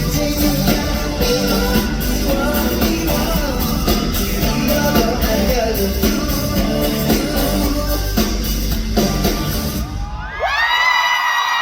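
Instrumental outro of a K-pop song played loud in a concert hall, stopping about ten seconds in. As it ends, high-pitched screaming and cheering rise up.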